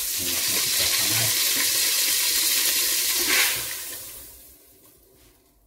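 Hot oil in a pot sizzling loudly as blended chili paste is poured in. The sizzle fades away over the last two seconds.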